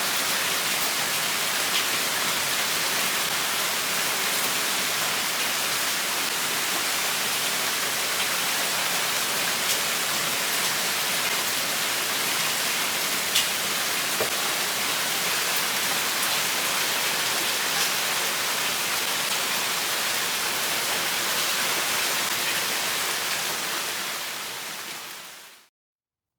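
Heavy typhoon rain falling steadily: a dense, even hiss with a few sharper drop ticks. It fades out near the end.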